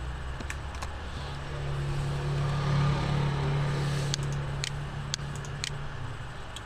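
A low hum swells and fades over about four seconds, with about six short, sharp computer mouse clicks scattered through it.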